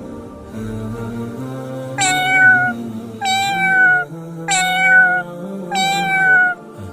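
A cat meowing four times, evenly spaced about a second and a half apart, each meow a short drawn-out call falling in pitch, over soft background music.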